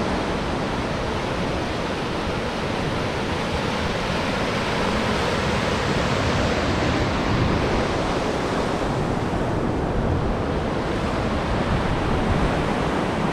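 Ocean surf washing steadily against the shore, with wind, as one continuous even noise.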